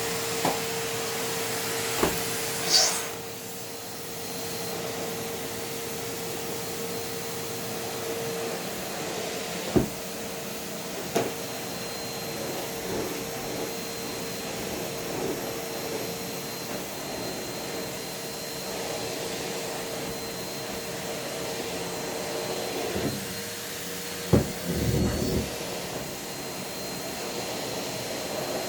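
Numatic Hetty cylinder vacuum cleaner running with a steady motor whine while its nozzle sucks at socks on feet. A few sharp knocks come through, and about three seconds in there is a brief high squeal of air.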